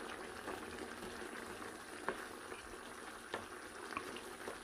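Thick, sticky pork humba sauce simmering and bubbling in a stainless steel pot as a spatula stirs through it, with a few sharp clicks of the spatula against the pot.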